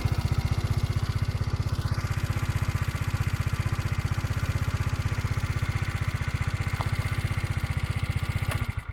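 Single-cylinder 50 cc four-stroke scooter engine (YY50QT) running steadily with an even beat, then cutting off suddenly near the end. The owner, whose freshly rebuilt engine gets extremely hot after a few kilometres, asks whether this running sound is normal.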